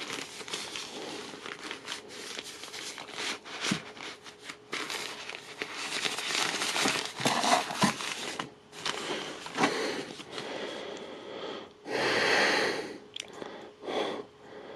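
Plastic packaging crinkling and rustling as a new camera is unwrapped, with irregular crackles throughout and a louder, longer crinkle or tear about twelve seconds in.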